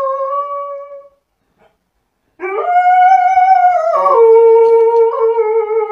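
Dog howling: one long howl that fades out about a second in, then, after a short pause, a second long howl that rises, holds, and drops to a lower held note partway through.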